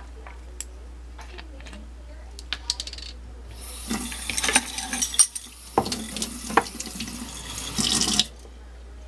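Kitchen tap running for about four and a half seconds, with a few clinks of a utensil, then shut off abruptly. A few light clicks come just before the water starts.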